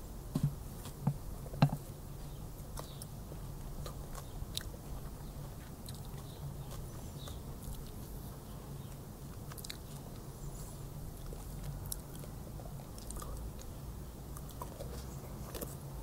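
A person chewing food with open-mouthed smacking: three louder smacks in the first two seconds, then quieter scattered mouth clicks over a steady low hum.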